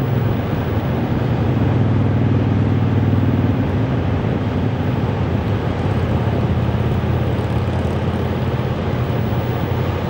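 Road traffic going by: a motor vehicle's engine hum, stronger about two seconds in and again later, over a steady rushing noise.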